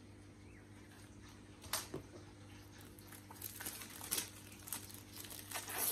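Clear plastic shrink-wrap on a small cardboard camera box being slit with a cutter and peeled away. It crinkles and crackles in short spells, with a sharp click a little under two seconds in, and grows louder toward the end, over a low steady hum.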